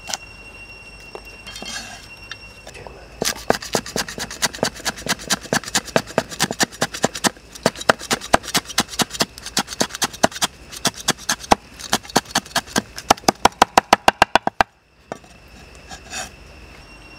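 Cleaver chopping leafy herbs on a wooden chopping board: a fast run of sharp knocks, about five a second, beginning about three seconds in, quickening near the end and then stopping suddenly.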